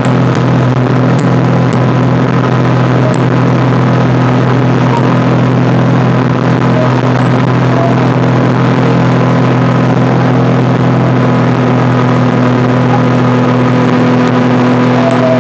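An engine running at a steady speed: a loud, even drone with a constant low hum.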